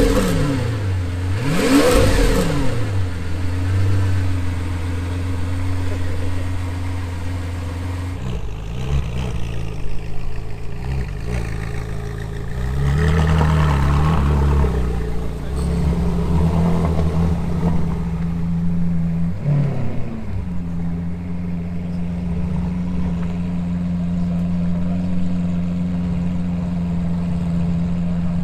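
Car engine revving sharply a couple of times, then idling. It revs again in the middle and settles into a steady idle for the last third.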